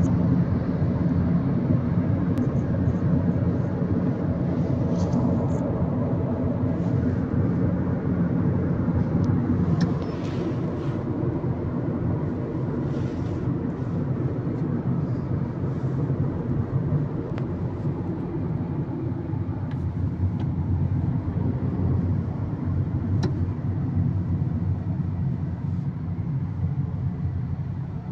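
Steady low rumble of a car's road and engine noise, heard from inside the cabin while driving, a little quieter from about ten seconds in.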